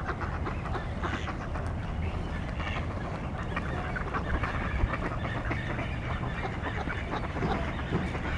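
A flock of mallards quacking, many short calls overlapping, over a steady low rumble.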